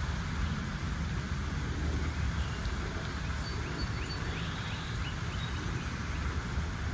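Steady low rumble and hiss of outdoor noise, with a small bird's faint quick chirps from about two to five seconds in.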